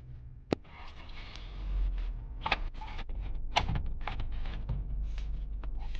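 Handling noise as a car stereo unit is worked loose in the dash: a few sharp clicks and knocks, about half a second, two and a half and three and a half seconds in, over rustling and rubbing.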